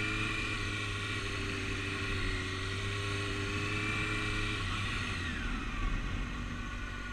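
Motorcycle engine running at low speed during slalom practice, held steady, then falling in pitch about five seconds in as the rider rolls off the throttle.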